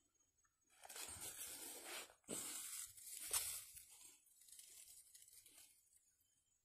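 Rustling and crunching of dry brush and weeds as someone moves through overgrown vegetation, in two long stretches with a short break between, then fainter near the end.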